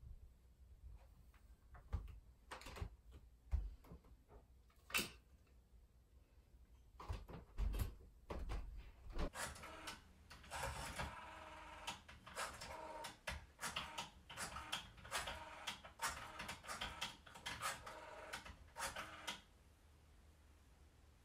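A corded telephone being picked up and a number dialled: a dense run of clicks with a faint steady tone under them lasting about ten seconds, which stops shortly before the end. Before it come scattered light knocks and handling sounds.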